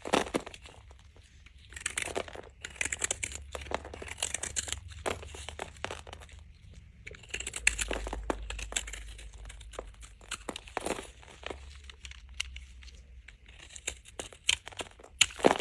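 Dry bar soap being cut with a knife: dense crunching and crackling strokes in uneven clusters, with brief pauses between cuts and a few louder sharp cracks near the end.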